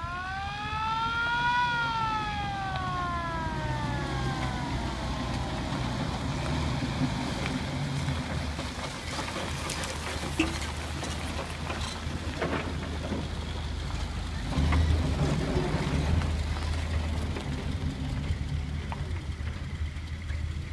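A mechanical siren winds up for about a second and a half, then winds down slowly over the next few seconds. A vehicle engine runs steadily underneath with a low rumble, growing louder about fifteen seconds in.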